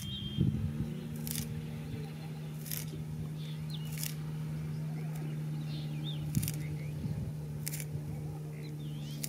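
Leafy greens cut against an upright fixed blade in short sharp snips, about one every second and a half, over a steady low hum, with small birds chirping faintly.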